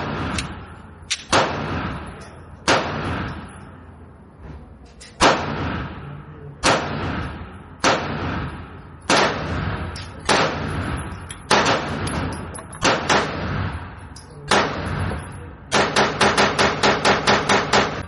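Glock 19 9mm pistol firing. There are single shots about one to two seconds apart, a few close pairs, then a rapid string of about ten shots near the end at roughly five a second. Each shot is followed by a long echoing decay.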